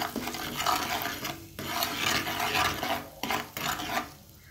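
Metal spoon stirring and scraping chilli powder, turmeric and salt through hot bubbling oil in a non-stick frying pan: spices being fried for an egg fry masala. About three sweeping strokes, fading near the end.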